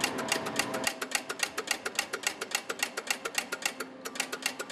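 Siemens pointer telegraph ticking rapidly and evenly, about eight ticks a second, as its pointer steps round the letter dial.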